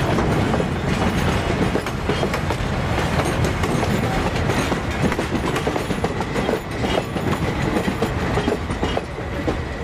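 Goods wagons and coaches of a steam-hauled mixed train rolling past close by, their wheels clattering steadily over the rail joints with a continuous run of knocks and rumble.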